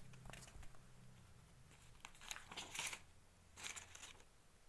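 Faint rustling and crinkling of paper and plastic packaging being handled, in a few short bursts.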